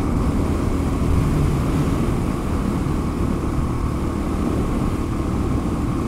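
Suzuki DR-Z400S single-cylinder four-stroke engine running steadily at cruising speed while the bike rides along, the sound holding even with no revving.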